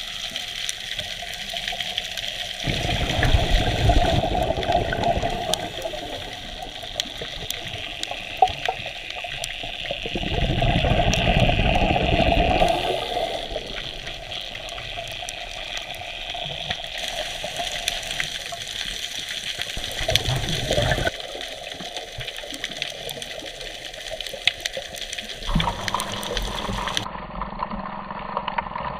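A scuba diver's breathing heard underwater: three long rushes of exhaled bubbles from a Scubapro regulator, with a steady hiss and scattered crackling clicks in between.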